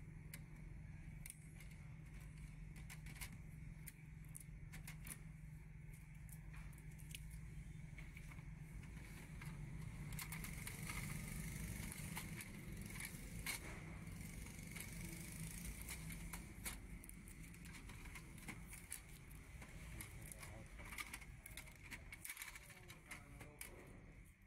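Faint clicks, crackles and rustles of a plastic inkjet printer being handled and its blue packing tape peeled off, over a steady low hum.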